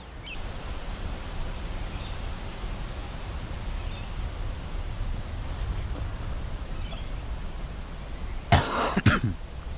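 Steady outdoor background noise with a low rumble. About eight and a half seconds in comes a brief, loud cluster of knocks and scuffs.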